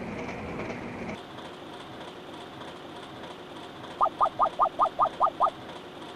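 Train running noise that cuts off about a second in, leaving a quieter steady background. About four seconds in comes a quick run of eight short rising chirps, about five a second, the loudest thing here.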